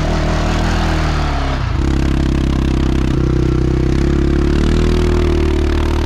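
ATV engine revving under load as its tyres spin and churn through deep snow. The engine pitch sags over the first second and a half, then holds steady with a slight rise near the end.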